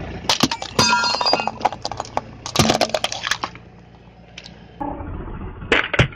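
Glass light bulbs cracking and shattering under a car tyre, with sharp cracks and tinkling glass in two bursts about two seconds apart. A low rumble follows, then a few more cracks near the end.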